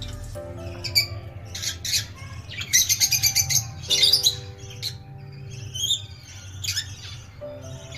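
Lovebirds, rosy-faced and Fischer's, chirping and squawking in short sharp calls, with a fast run of chirps about three seconds in. Background music with held notes plays underneath.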